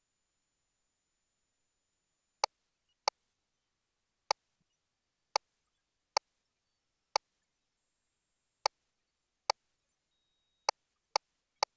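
Sharp single clicks at irregular intervals, about eleven in all, starting a couple of seconds in: button and control clicks on an ultrasound machine's console as an elliptical measurement caliper is placed.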